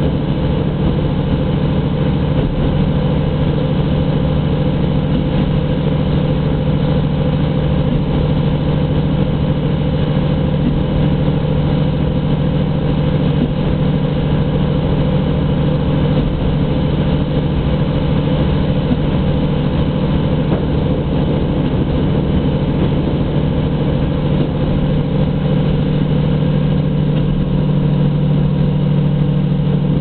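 Diesel railcar running steadily along the line, heard from inside the passenger car: a steady low engine hum over the even rumble of the train under way.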